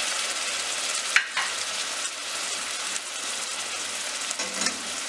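Onions frying in hot oil in a steel pot, sizzling steadily as freshly added ginger-garlic paste and ground spices start to cook, with one sharp click about a second in.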